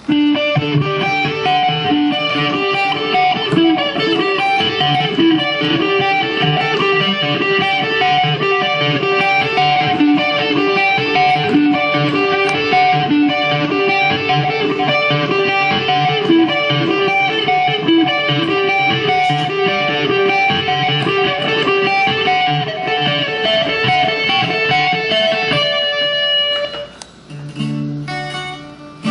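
Guitar-led music with a steady rhythm. It breaks off about 26 seconds in, and a new guitar passage starts near the end.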